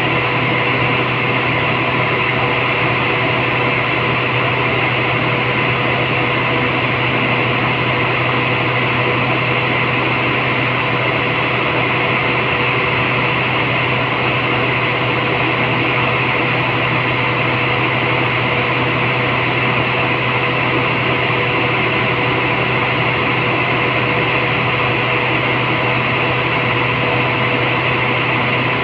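Steady drone of running machinery, an even hum with a noisy hiss over it that does not change.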